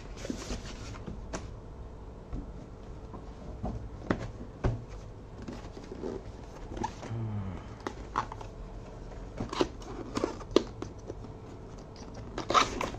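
Cardboard keyboard box being opened and handled: scattered taps, light scrapes and rustles, with a louder knock and clatter near the end.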